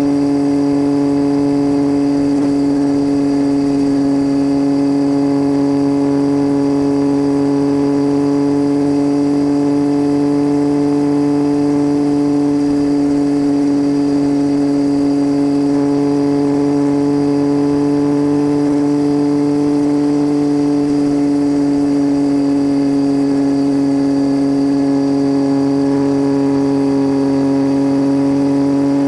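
Triumph Tiger 800 inline-three engine droning steadily through an unbaffled titanium Leo Vince exhaust, heard from under the seat while riding at a near-constant speed. The pitch rises slightly about midway, then eases back.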